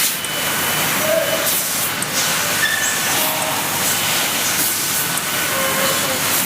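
Steady loud hiss of a laser cutting and welding machine at work, with a few brief faint tones over it.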